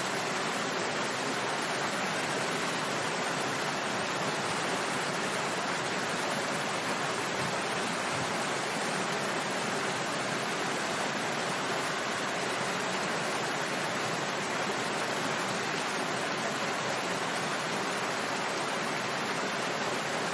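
Small waterfall: water falling and splashing in a steady, even rush.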